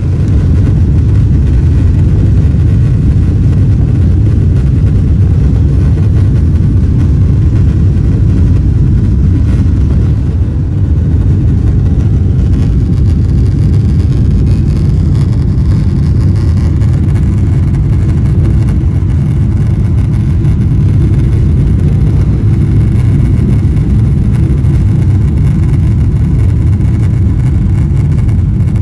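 Boeing 777-300 takeoff heard from inside the cabin: the jet engines at takeoff thrust, a loud, steady, deep rumble through the takeoff roll and the climb-out.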